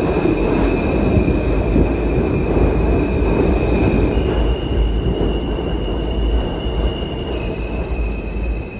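New York City subway J train running, with a heavy rumble of wheels on track and a steady high whine that steps up in pitch about four seconds in and drops back a few seconds later. The rumble eases off slightly near the end.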